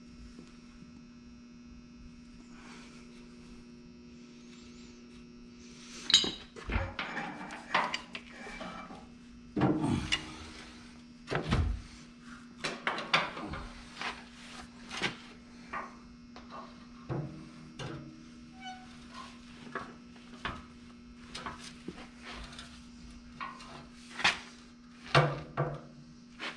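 Irregular metal clunks, knocks and scrapes of a heavy hydraulic pump being manhandled onto a tractor's PTO housing and worked into its seat, starting about six seconds in, over a steady electrical hum.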